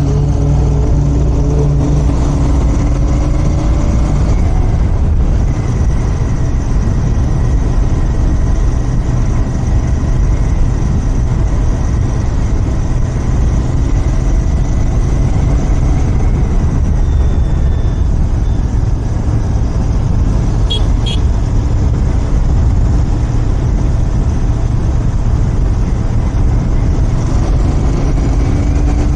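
Royal Enfield Continental GT 650's 648 cc parallel-twin engine running through its stock exhaust while riding at a steady pace, the engine note rising near the end.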